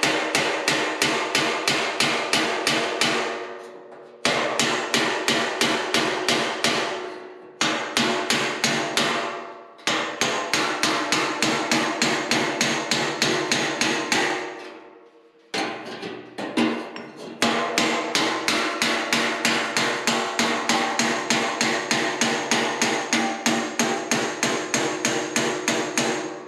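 Ball-peen hammer striking a steel forming dolly wedged between the bent ribs of a Farmall M's sheet-steel grille. Each strike is a sharp metallic hit that rings briefly, about three or four a second, in runs of several seconds with a few short breaks. The hammering drives the ribs straight and evenly spaced.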